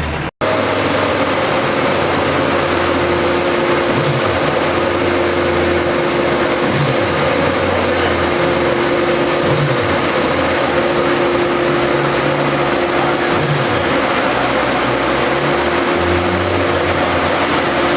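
Rebuilt 2005 Suzuki Hayabusa engine running at a steady speed, with a constant hum and no revving. The sound cuts out for an instant just at the start.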